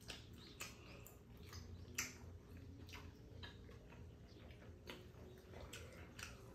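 Faint eating sounds: scattered small clicks and taps of metal chopsticks working tteokbokki in a pan, with chewing and lip smacks. The sharpest click comes about two seconds in.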